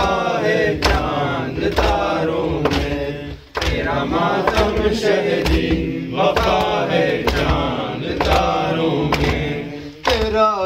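Male voices chanting an Urdu noha, a Muharram lament, over a steady beat of hand strikes, the mourners' matam (chest-beating) keeping time.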